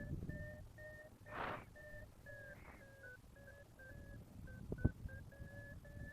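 Paragliding variometer beeping in a close chain of short electronic tones, its pitch stepping slightly up and down: the sign of the glider climbing in rising air. A brief rush of wind comes about a second and a half in, and a sharp click near the end.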